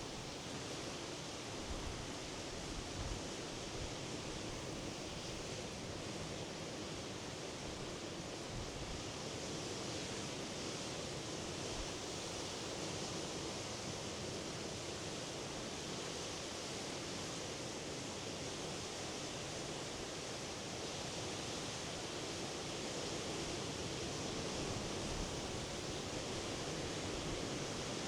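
Sea surf washing steadily on the shore, an unbroken, even rush of waves, growing a little louder over the last few seconds.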